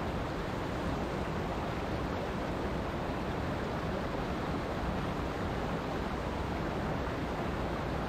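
Mountain stream rushing over rocks in small cascades: a steady, unbroken rush of water.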